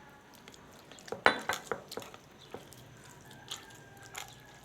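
Metal fork mashing boiled dried figs and garlic with olive oil in a dish, tapping and scraping against it in a string of irregular clinks, the loudest a little over a second in.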